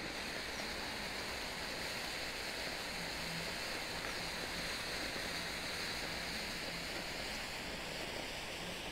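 Black Cat smoke grenade burning with a steady hiss as it pours out smoke.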